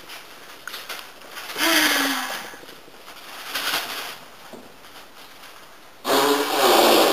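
A person's voice making wordless sounds: a loud breathy sigh with a falling pitch about two seconds in, a shorter one around four seconds, then a loud strained cry near the end.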